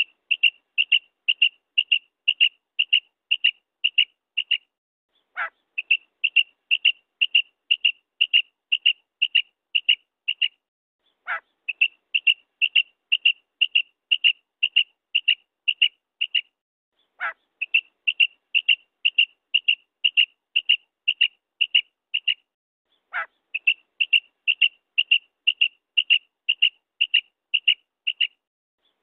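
Female common quail calling in repeated bouts, each a short falling note followed by a rapid run of about a dozen short high notes, about three a second. The bouts come about every six seconds.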